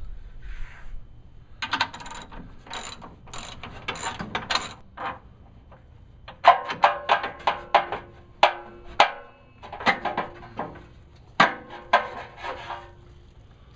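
Hand ratchet wrench clicking in several short runs of quick strokes, with pauses between them, while the factory rear bumper's mounting bolts are worked loose.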